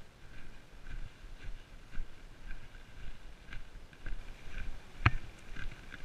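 Footsteps of a hiker walking with a trekking pole on a sandy path, an even rhythm of about two steps a second, with one sharper click a little after five seconds in.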